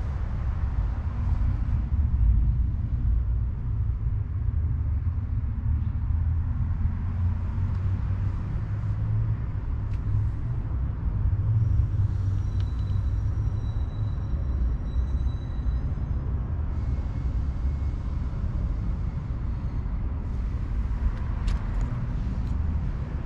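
Jaguar XK120's 3.4-litre straight-six idling with a steady low rumble, with a few light clicks near the end.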